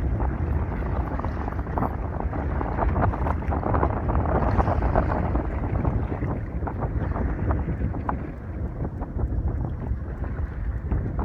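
Wind buffeting the microphone on an open boat over a steady rush of water, with scattered short clicks and knocks.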